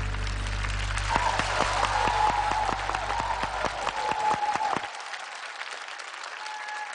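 Studio audience applauding at the end of a song, with dense clapping. The band's last low held chord rings under the applause and dies away about five seconds in.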